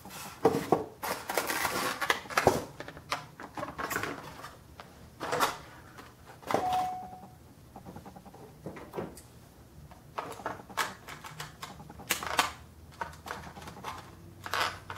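Die-cast scale model being handled: irregular clicks, taps and rattles of metal and plastic parts, with one brief squeak about halfway through.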